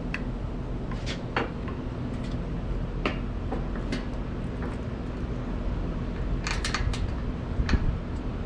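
Light metal clicks and clinks as the oven's handle, heat shield and screws are handled and fitted during assembly: single clicks every second or so, then a quick run of several about two-thirds of the way through. A steady low hum runs underneath.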